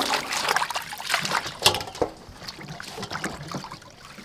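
Water splashing and dripping as hands swish leaf lettuce around in a metal bowl of water and lift it out. The splashing is busiest in the first two seconds, then grows quieter and sparser.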